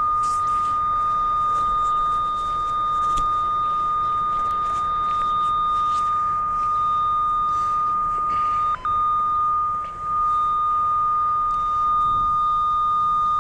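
Cable locator receiver sounding a steady high-pitched tone at one pitch, broken briefly about nine seconds in: its signal response to the direct-connected coax cable, strong over the cable.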